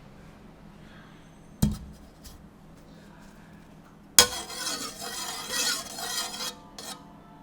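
Kitchenware being handled: a sharp knock, then a louder hit followed by about two seconds of rattling, clattering metal and dishes, with a last small clink.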